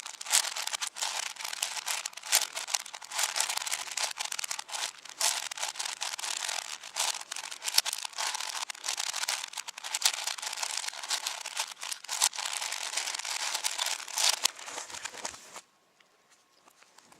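A 7x7 speedcube being turned very fast: a rapid, continuous clicking and clacking of plastic layers, which stops abruptly near the end and gives way to near silence.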